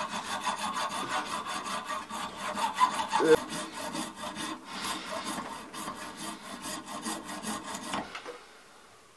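Small hacksaw sawing through the sprue left on a cast brass rifle butt plate, with quick, regular back-and-forth strokes of the blade on the brass. The sawing stops about eight seconds in as the sprue is cut off.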